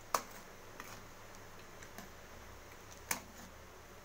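Spoon clicking against the pan while stirring milk. There are two sharp clicks about three seconds apart, with a few fainter taps between them.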